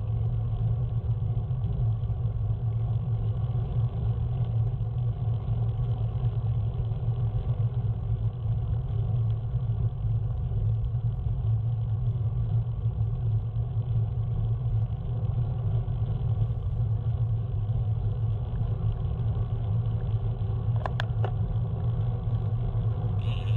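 Steady low rumble, as of a vehicle in motion, holding an even level throughout, with a couple of brief clicks near the end.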